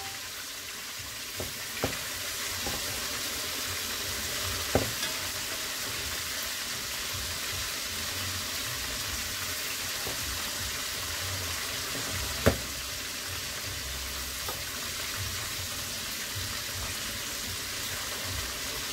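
Chicken frying in hot oil in a heavy pot, a steady sizzle, with a few sharp clinks of a metal spatula and fork against the pot as the pieces are turned, the loudest about two, five and twelve seconds in.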